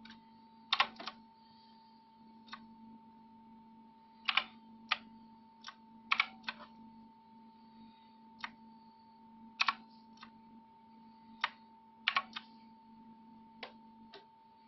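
Clicky blue-switch mechanical keyboard keys pressed one at a time at an uneven, unhurried pace, some in quick pairs, over a steady faint hum.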